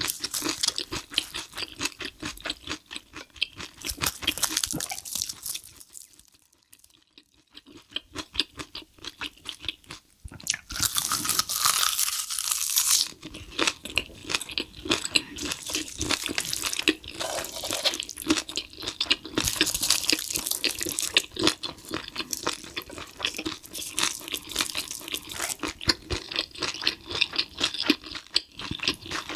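Close-miked chewing and crunching of spicy stir-fried cuttlefish with bean sprouts wrapped in roasted seaweed, with wet mouth clicks. The chewing drops nearly silent for a few seconds about a fifth of the way in, then a louder breathy rush lasts a couple of seconds.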